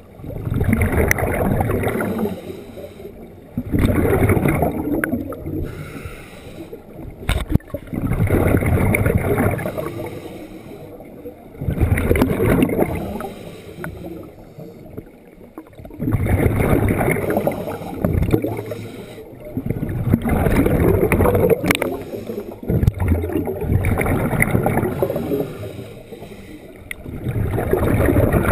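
Scuba regulator breathing heard underwater through a head-mounted camera housing: a burst of exhaled bubbles roughly every four seconds, about eight in all, with quieter inhalation gaps between.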